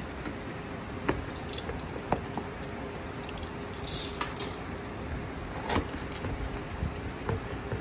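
A cardboard box being opened by hand: a box cutter slitting the packing tape, then the flaps pulled open. Scattered light taps, scrapes and rustles, with a brief hissing scrape about four seconds in.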